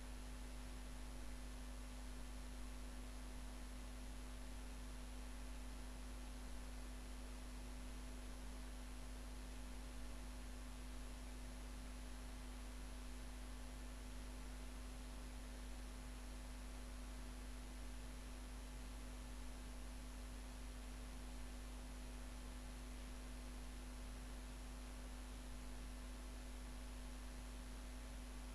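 Steady electrical hum with a fainter mid-pitched tone, a thin high whine and even hiss; nothing else happens.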